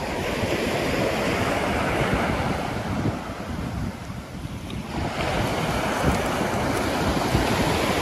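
Sea surf washing onto the beach, with wind buffeting the microphone. The wash eases about three seconds in and swells again about five seconds in.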